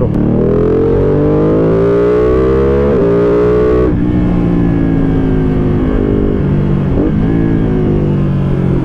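Ducati Panigale V2's twin-cylinder engine through an open, catalyst-free aftermarket exhaust under hard acceleration: revs climb, a quick upshift about three seconds in, revs climb again, then the throttle is closed about four seconds in and the revs settle lower and fall off, with a short throttle blip near seven seconds as he shifts down.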